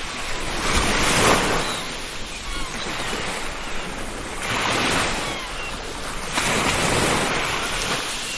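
Ocean waves breaking and washing up a beach, swelling and easing in surges every few seconds, with faint short gull cries above the surf.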